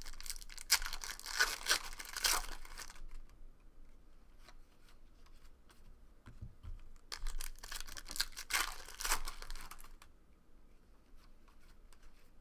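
Trading-card pack wrappers being torn and crinkled in two bouts a few seconds apart, with faint clicks of cards being handled between them.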